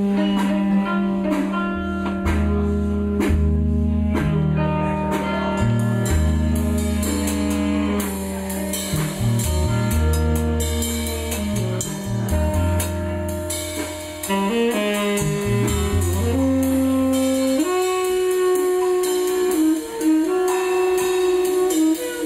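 Free jazz played live: saxophone, electric guitar and drum kit together, with held and wandering notes, deep low notes and drum and cymbal strikes.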